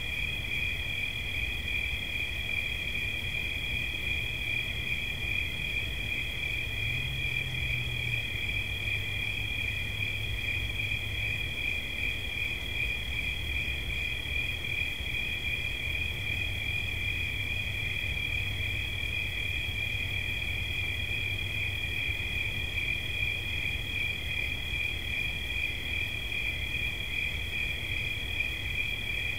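Cricket singing a continuous, unbroken high trill, with a low rumble underneath.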